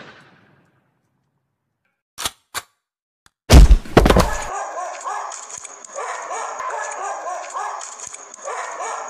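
Dubbed sound effects: two sharp shots about two seconds in, then a loud, deep bang a second later. After the bang comes a dog whining and barking over a steady high chirring of crickets.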